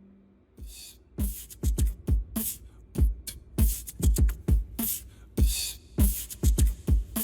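Background music: an electronic hip-hop beat with deep kick drums and sharp snare and hi-hat hits starts about half a second in, after a guitar chord fades out.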